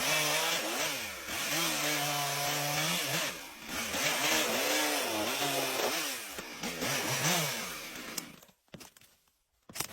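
Chainsaw running and cutting wood, its engine note repeatedly sagging and climbing again as it loads in the cut. It cuts off abruptly about eight and a half seconds in, and a single sharp click follows near the end.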